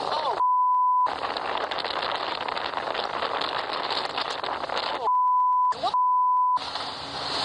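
Censor bleeps, a steady pure tone blanking out the sound, once about half a second in and twice in quick succession around five to six and a half seconds. Between them a steady rushing noise of wind and rain from the storm.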